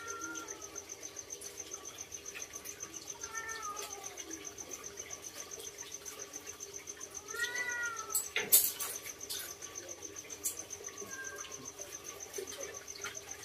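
A few short, arched, meow-like animal cries, the strongest about 7.5 s in, over a steady high insect trill. A single sharp clatter about 8.5 s in is the loudest sound.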